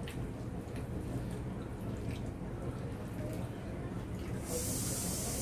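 Faint sounds of people eating rice by hand, a few soft clicks and mouth sounds, over a steady low room hum. About four and a half seconds in, a steady high hiss comes in and continues.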